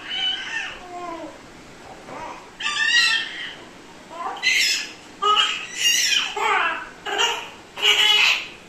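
A run of short, high-pitched squeaky calls played as a novelty sound effect: a few gliding calls, then quicker squeaks packed close together in the second half.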